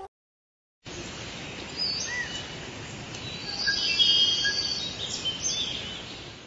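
Birds chirping and whistling over a steady background hiss, a nature ambience that starts about a second in after a brief silence.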